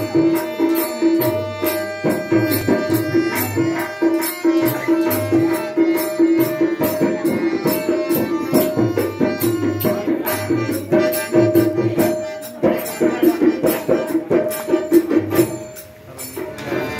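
Devotional bhajan music without voices: a harmonium holds a steady note over a fast, even beat of hand drum, clapping and jingling percussion. The playing thins out briefly near the end.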